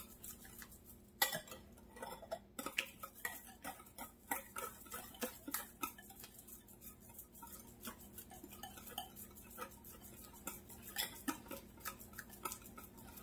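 Wire whisk beating eggs and sugar in a glass mixing bowl, its wires clicking and tapping against the glass in a quick, irregular run of light clicks.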